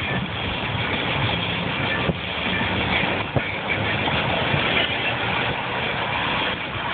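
Steady road noise of a car travelling along a highway: tyre and engine rumble with traffic moving alongside. Two brief knocks come about two and three and a half seconds in.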